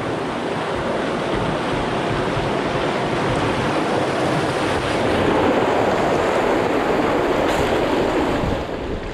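Rushing water: a steady loud rush that swells from about halfway through and eases off near the end.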